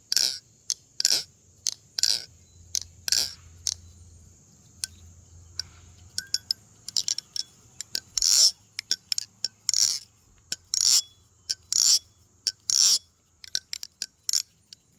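Thomas balisong (butterfly knife) being flipped: a rapid run of sharp clacks as the handles swing and strike, each with a high metallic ring, the sound the uploader likens to laser beams. The clacks thin out for a few seconds near the middle, then pick up again.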